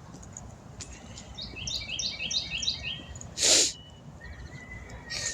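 A songbird singing a rapid run of short, repeated high chirps for about a second and a half. About three and a half seconds in comes a brief, loud rush of noise.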